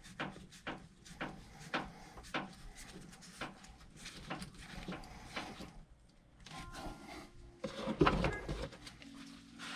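Irregular light clicks and taps of plastic parts being handled as the feed hose is tightened onto a Pelican (Dosatron) chemical feed injector, with a louder knock about eight seconds in.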